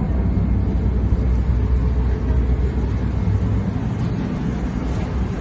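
Steady low rumble of an airliner's cabin noise, with no change through the stretch.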